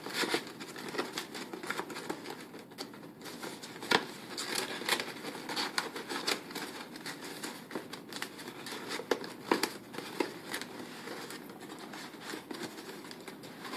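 Paper pieces of an IQ lamp crinkling and rustling as hands squeeze them around a thick lamp cord, with many small irregular clicks and scrapes.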